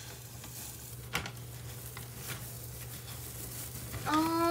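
Faint rustling handling noise over a steady low hum, with a single click about a second in, then near the end a short hummed voice sound from a girl that rises briefly and holds for about half a second.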